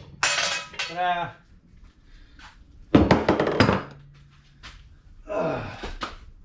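Metal-on-metal clanking and hammer strikes on a socket used as a driver to knock out a suspension bearing race or bushing. A loud cluster of several quick blows comes about three seconds in, and there is clattering and scraping of loose metal parts before and after it.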